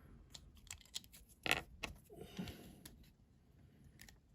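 Small clicks and light scrapes of a diecast model car's parts being handled and pressed together as its base plate is fitted back on, with one sharper click about a second and a half in.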